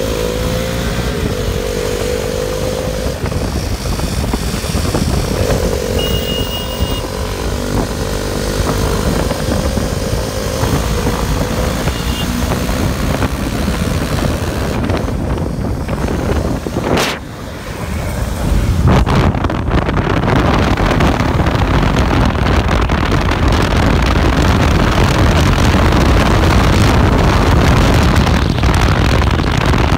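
KTM 390 Duke single-cylinder engine running under way, its pitch wavering as it is ridden. Just after halfway there is a brief drop and a click, then heavy wind rush on the microphone mostly covers the engine.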